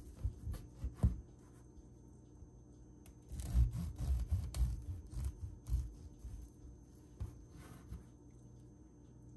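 Serrated knife sawing through a crusty loaf of whole-grain bread on a wooden cutting board: rasping back-and-forth strokes, a short burst near the start and a longer one from about three to six seconds in, with a few light taps of the blade on the board.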